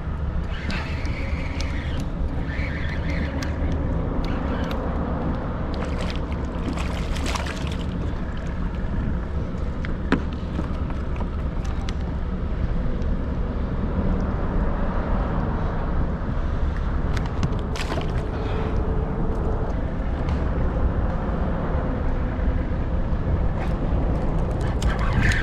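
Steady low rumble and hiss of wind and water on the microphone, broken by a few short knocks.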